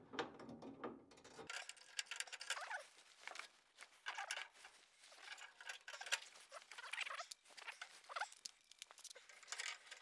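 Hands handling the wiring inside a gas furnace cabinet: wires and connectors rustling and scraping, with many small irregular clicks and faint squeaks.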